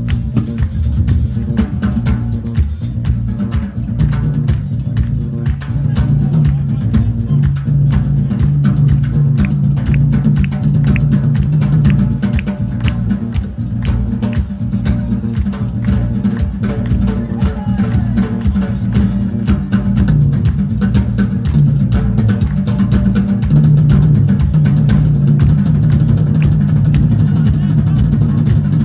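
Live folk band playing a fast, driving dance tune: a drum kit keeps a quick, even beat over a strong bass line, with accordion and guitars in the mix.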